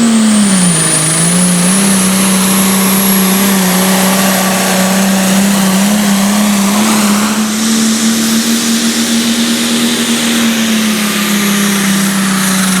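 Competition pulling tractor's engine running flat out under load while dragging the weight sled, with a high whine over it. The engine note dips briefly about a second in, then holds steady and high.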